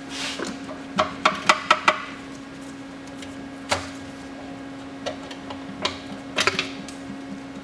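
Irregular clinks and knocks of metal tools and parts being handled on a CD009 transmission as its cover comes off: a quick run of taps about a second in, then scattered single knocks. A steady low hum runs underneath.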